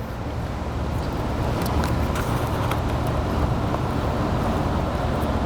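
Steady low background rumble, with a few faint light clicks, about two seconds in, of plastic helmet parts being handled.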